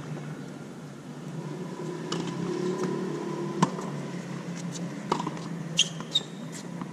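Sharp knocks of a tennis ball on a hard court and racket: one loud knock a few seconds in, then three quicker bounces near the end, the last two with a short ring. A steady low hum runs underneath.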